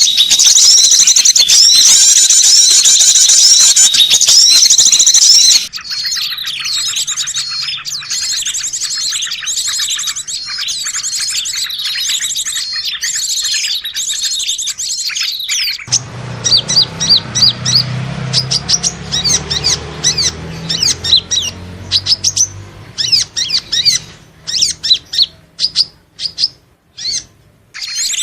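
Recorded calls of small songbirds played as a bird lure: dense, high chirping and trilling. It switches abruptly to a different recording about six seconds in and again about sixteen seconds in, the last part being sharp separate chirps over a low hum.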